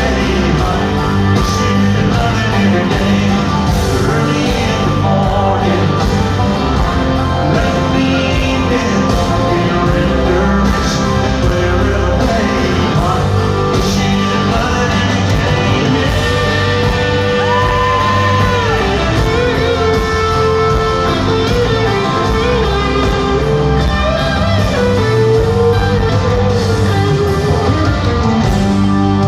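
Live country-rock band playing in an arena, with a lead singer over guitars and drums, heard loud and dense through a phone. The singing stands out more clearly from about halfway through.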